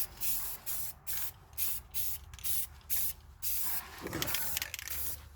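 Aerosol spray-paint can sprayed in a run of short hissing spurts, about two a second, coating car underbody parts against rust.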